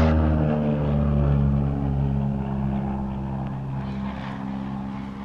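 Low-flying passenger airplane passing close overhead: a steady engine drone made of several tones that slowly fall in pitch as it moves away, growing gradually quieter.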